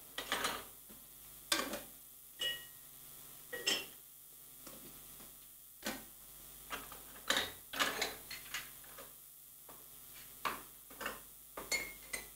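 Irregular clinks and taps of teapots, small tea glasses and spoons being handled, a few with a short ringing tone.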